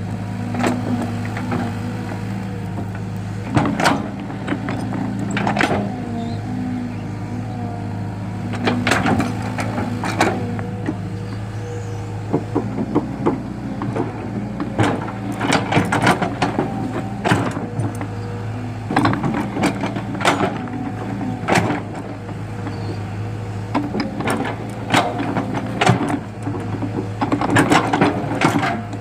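An excavator's diesel engine running steadily, with repeated sharp metallic knocks and clanks at irregular intervals.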